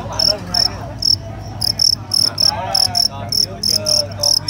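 Fighting crickets chirping: short, bright chirps coming about four times a second in uneven bursts.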